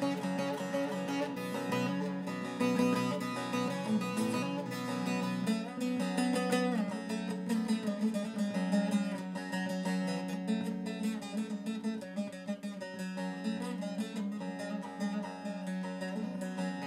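Saz (long-necked lute) played solo: a melody of quick plucked notes over a steady low drone.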